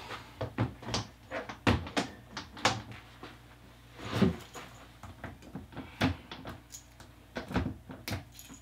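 Drop-down doors and latches of Freedom Breeder plastic reptile rack cages being handled: a string of irregular clicks and knocks, a few of them louder, with a longer, heavier knock about four seconds in.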